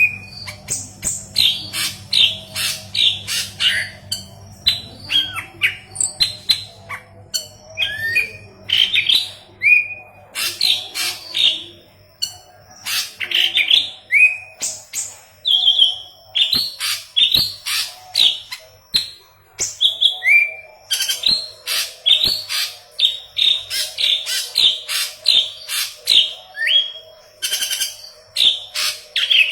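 Leafbird (murai daun kepala kuning) in vigorous full song: a fast, nearly unbroken stream of short, varied chirps and quick rising and falling whistles with only brief pauses.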